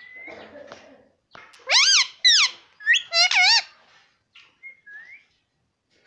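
Indian ringneck parakeet close to the microphone giving loud whistled calls: two gliding calls about two seconds in, then a quick warbling run a second later. A few faint chirps follow near the end.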